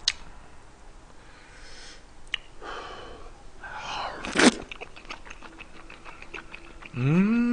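A person eating: a loud noisy slurp about four and a half seconds in as food goes into the mouth, then chewing with small wet smacking clicks. A short hummed vocal sound that rises and falls comes near the end.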